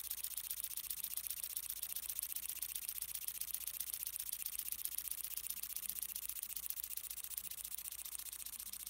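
Miniature single-cylinder oscillating model engine of the 'Huff 'n' Puff' type running fast. It gives a rapid, even, thin ticking hiss of exhaust puffs.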